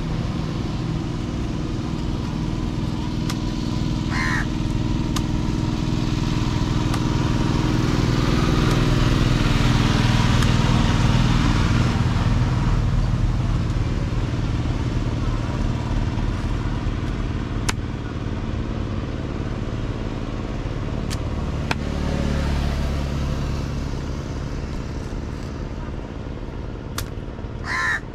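A motor vehicle engine runs steadily, growing louder toward the middle, easing off and swelling again later. A crow caws about four seconds in and twice near the end, and a few sharp knife taps on the wooden chopping block sound in the second half.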